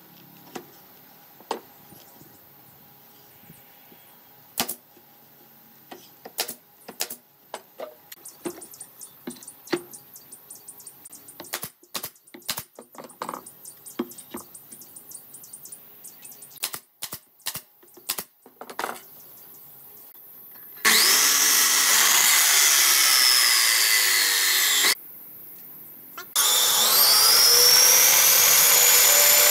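Sharp clicks and knocks of wooden boards being handled and fastened on a workbench. About two-thirds of the way through, a band saw starts cutting a stack of pallet boards with a loud, steady noise. It stops for a moment, then starts cutting again.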